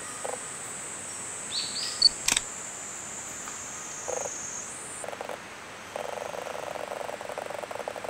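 Forest wildlife: a high steady buzz that rises and stops about five seconds in, a few short bird chirps and one sharp click around two seconds in, then a rapid pulsing call from about six seconds on.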